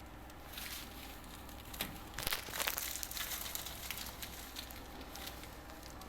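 Crinkling, rustling handling noise, loudest between about two and three seconds in.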